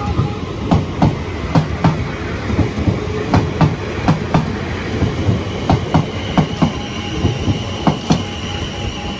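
A South Western Railway Class 444 electric train passing at speed, its wheels clattering in repeated paired clicks over the rail joints. The level crossing's two-note alarm sounder is heard faintly under it near the start and again in the second half.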